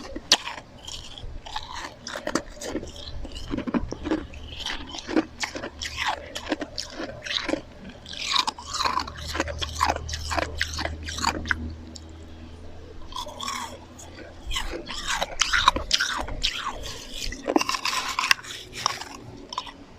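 Close-miked chewing and crunching of slushy ice: a rapid, irregular run of sharp bites and crunches that eases off for a moment about twelve seconds in, then picks up again.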